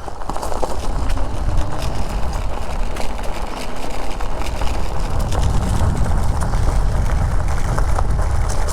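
Wind buffeting the microphone of a moving e-bike, with a steady low rumble and scattered small clicks and rattles from the ride.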